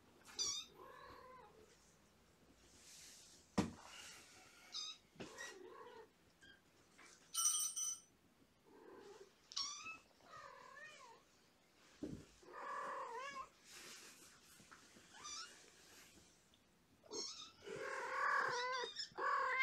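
Young kittens about five weeks old mewing over and over in short, high calls, which come faster and louder near the end. A couple of sharp thumps come through, the loudest about three and a half seconds in.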